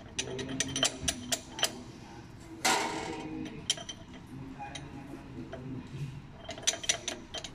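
Small metal clicks and clinks of a socket and extension being worked against the bolts of a clutch pressure plate while the clutch disc is centred, with one brief louder scrape about two and a half seconds in.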